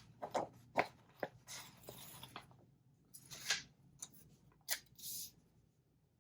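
Hands handling paper planner stickers and pages: a string of sharp little taps and clicks mixed with short papery rustles and swishes, dying away about five seconds in.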